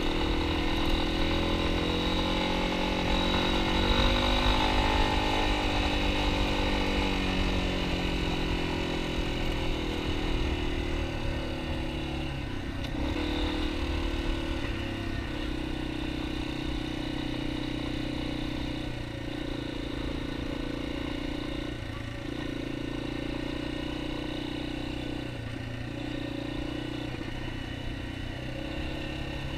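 Yamaha XT250's single-cylinder four-stroke engine running under way on a dirt road, its pitch rising and then falling over the first several seconds with the throttle. Later the note holds steadier, broken by several brief dips as the rider eases off or changes gear.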